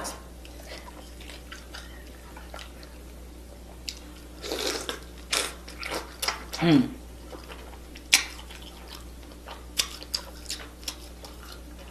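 A person chewing and biting into seafood: scattered short crunches, clicks and wet mouth sounds, with one brief voiced 'mm' about two-thirds of the way through.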